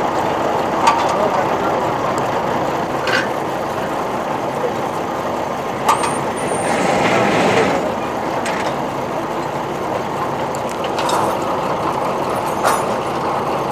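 Engine of a truck-mounted borewell pipe-pulling rig running steadily while it lifts the riser pipe, with sharp metallic clicks every couple of seconds and a hissing burst a little past halfway.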